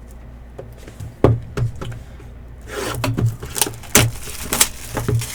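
Cardboard trading-card hobby box and its plastic wrapping being handled and opened: a series of sharp taps and knocks with crinkling rustles, the loudest knocks about a second in and about four seconds in.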